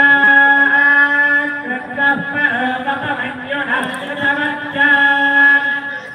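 Devotional chanting at an Ayyappa puja, sung in long held notes.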